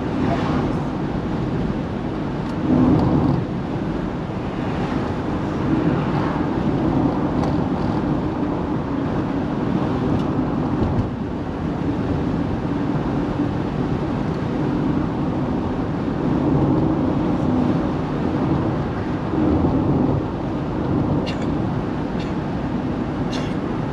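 A car driving on the road: steady engine and tyre noise heard from inside the car, swelling a little now and then, with a couple of short ticks near the end.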